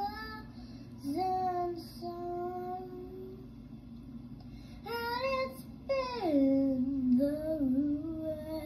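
A young girl singing, holding long notes that slide up and down in pitch, with a pause of about a second and a half midway.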